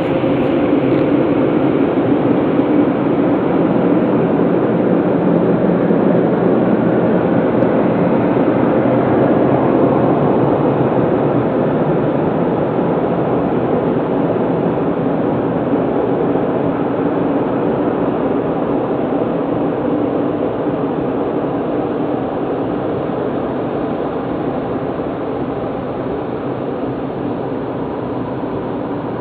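Automatic car wash machine running with a steady rushing noise and a faint hum, slowly getting quieter over the second half.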